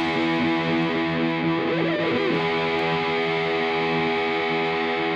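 Background music: distorted electric guitar holding a sustained chord, with a few short bent notes over it.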